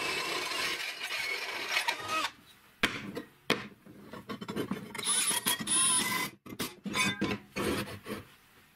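Step drill bit boring through metal plate, a steady grinding cut with a faint squeal, stopping about two seconds in. Then a run of knocks and metallic clinks, some ringing, as steel tubes and the drilled plate are handled and fitted together.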